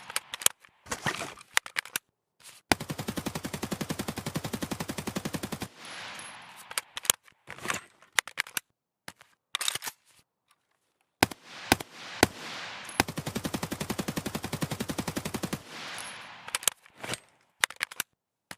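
AKS-74U assault rifle firing on full auto: two sustained bursts of about three seconds each, each with a fading tail. Shorter bursts and single sharp reports come in between.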